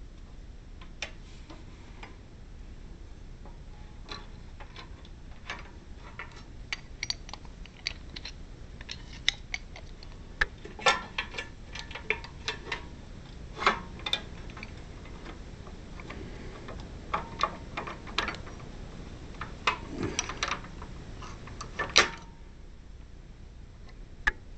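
Metal parts and hand tools being handled and set against each other. It comes as irregular light clicks and knocks, busiest from about halfway through, with the sharpest knock near the end.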